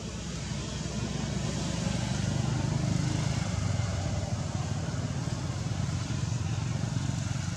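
A motor vehicle's engine running steadily, growing louder about a second in and then holding.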